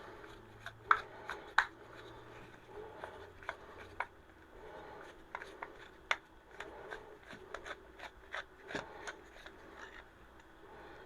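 Irregular small clicks and taps of hand tools and metal parts while a generator's carburetor is taken apart to remove the jet, with two sharper clicks in the first two seconds.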